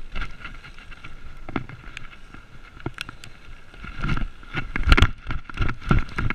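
BMX bike rolling over a bumpy dirt trail: tyres on dirt with the frame and parts rattling and knocking irregularly, the clatter heavier and louder from about four seconds in.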